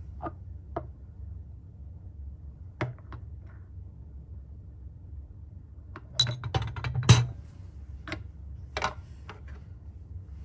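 Glass test tube clinking and tapping against a metal wire test tube rack as it is lowered into place: a few light taps, then a quick cluster of sharper clinks about six to seven seconds in, and a few more after, over a steady low hum.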